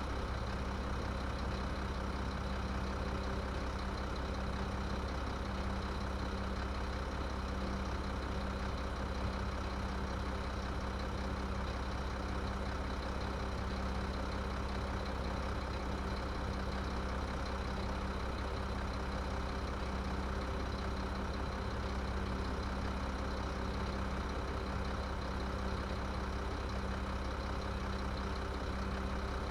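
Garbage truck engine idling steadily, an even low hum with no change in pitch or level.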